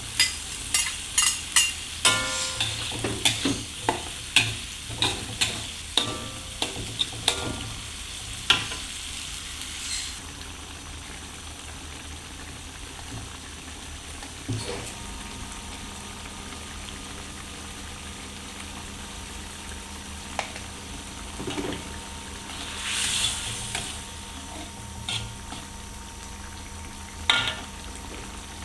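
A metal spatula scraping and clattering against a frying pan while food is stir-fried, with quick repeated ringing strikes for about the first nine seconds. After that the frying settles to a steady quiet sizzle with an occasional knock of the spatula.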